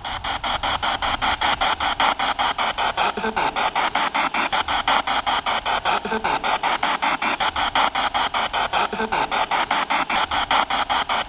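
Spirit box radio (P-SB7) rapidly sweeping through radio stations: a loud, choppy hiss of static cut into even pulses about seven times a second, with faint fragments of broadcast sound between.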